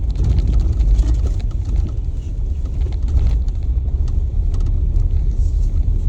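A Jeep driving on an ice-crusted snowy road, heard from inside the cabin: a steady low rumble of engine and tyres, with scattered sharp crackles as the tyres crunch over the ice crust.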